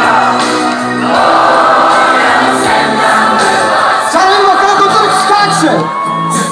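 Dense crowd of football fans singing together loudly, with scattered whoops and shouts. A single steady high note is held for about a second near the end.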